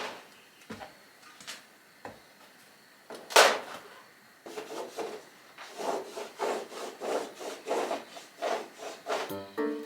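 A few scattered knocks and one loud sharp hit about three seconds in, then a steady run of rasping back-and-forth hand-tool strokes, about two a second, like sawing or filing. Background music comes in near the end.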